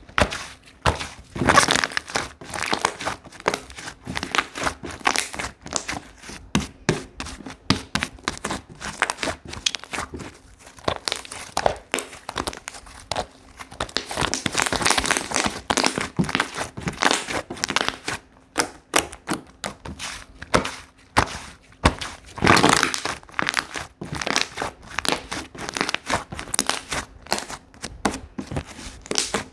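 Slime being squished, poked and stretched by hand, giving a dense stream of small pops, clicks and crackles, with denser, louder spells of squishing now and then.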